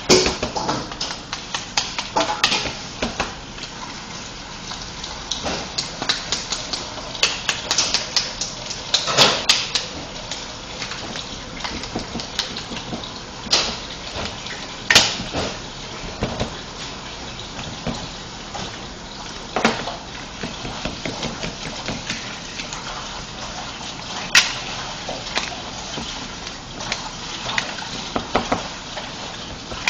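Irregular knocks, taps and rubbing from hands and a plastic fondant smoother working fondant onto a cake, over a steady hiss.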